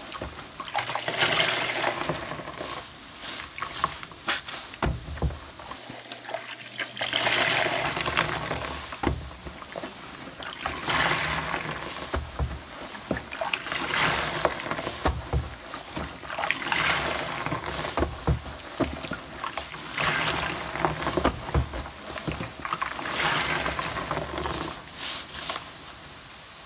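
A large yellow foam sponge being squeezed and released in soapy water, over and over. Each squeeze sends a gush of water rushing out, about every three seconds, with soft fizzing and dripping between the squeezes.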